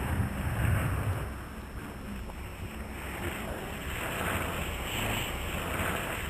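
Wind buffeting a camcorder microphone outdoors, a rumbling noise that swells and fades, with a thin steady high tone under it.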